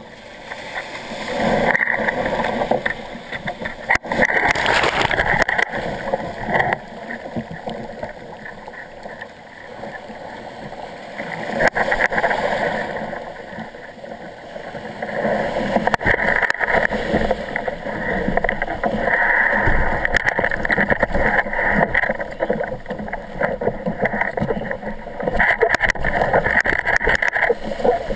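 Shore-break surf breaking and washing around a kayak's hull, the rush of water swelling and easing in surges several seconds long.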